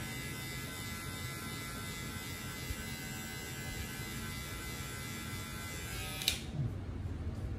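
Electric hair clipper with a number-one guard, lever open, buzzing steadily as it cuts up the side of the head; it stops with a click about six seconds in.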